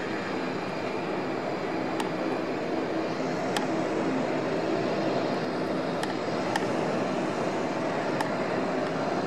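Steady rushing jet engine noise of aircraft at an airport, with a few faint clicks scattered through it.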